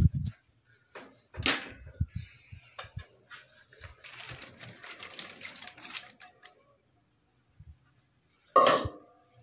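Knocks and clatter of a spatula and ingredients against a large metal cooking pot, with a stretch of rustling scraping in the middle and one louder knock near the end.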